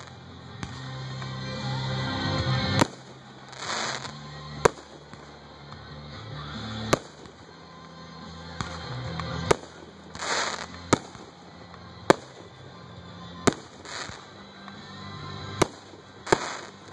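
Aerial firework shells bursting: about nine sharp bangs, irregularly spaced one to two seconds apart, with a few short hissing bursts between them, over background music.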